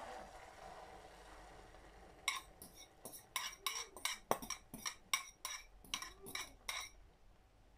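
A metal spoon clinking and scraping against a ceramic bowl, about a dozen quick strikes, as egg and carrot mixture is scraped out into a frying pan. A faint hiss of the mixture meeting hot oil comes before the clinks.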